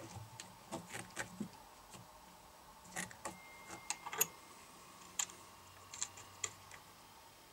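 Scattered light clicks and metallic taps from small metal parts being handled by hand: drill press feed handles, then a part being fitted onto a windshield wiper motor's output shaft. A few clicks come in the first second and a half, a sharper cluster about three to four seconds in, and a few more near six seconds.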